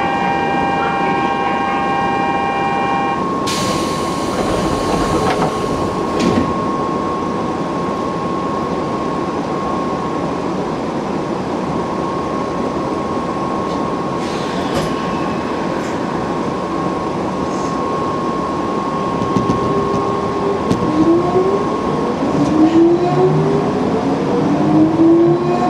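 Electric commuter train standing at the station and then pulling away. Several steady tones stop about three seconds in, followed by a burst of hissing air. A steady hum continues until, in the last few seconds, the traction motors start whining and rise in pitch as the train accelerates.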